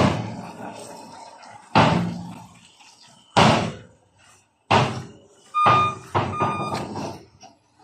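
Dump truck's steel bed and tailgate banging as the raised body comes down: about six separate heavy clanks, each fading quickly. Near the end, the truck's reversing alarm begins to beep.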